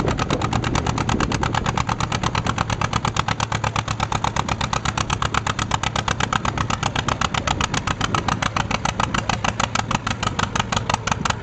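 John Deere D's two-cylinder engine popping steadily under load as it pulls the weight-transfer sled, a fast, even beat of exhaust pops.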